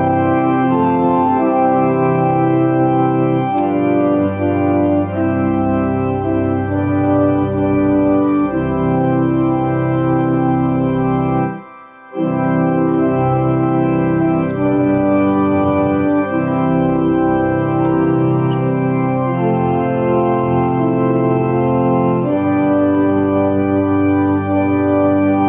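Kimball electronic home organ playing a slow hymn with both hands: held chords that change every second or so, with a brief break about halfway through.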